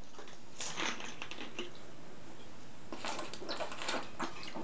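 Plastic milk bottle being handled: faint scattered clicks and crackles, a little busier about a second in and again around three seconds in.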